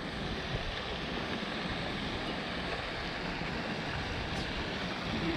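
Steady rushing outdoor background noise, with no distinct events standing out.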